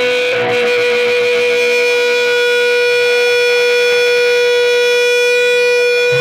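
Electric guitar feedback through a loud amplifier: one steady, high, ringing tone held at the same pitch without fading.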